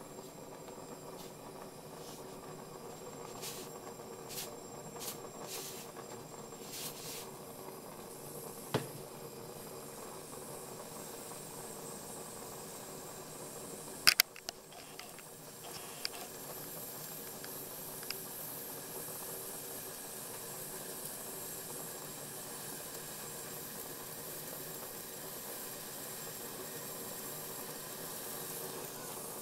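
Gas hob burner hissing steadily under a pan of warming sake, with a few light ticks and a sharp click about halfway through.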